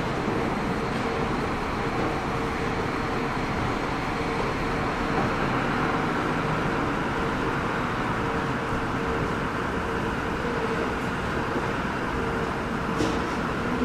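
Steady running noise of a train at a railway station, with a constant electric hum, and a short click near the end.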